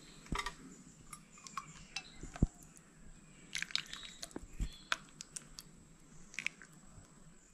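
A steel ladle clinking and tapping against a metal pot and a small steel bowl while curry is ladled out, as a scatter of light metallic taps with the sharpest about two and a half seconds in and a quick cluster near the middle.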